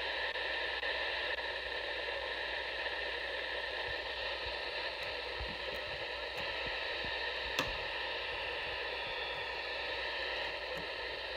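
Radio Shack Pro-95 handheld scanner's speaker giving out steady static hiss. A few light clicks from the scanner's antenna connector being handled, the clearest about seven and a half seconds in.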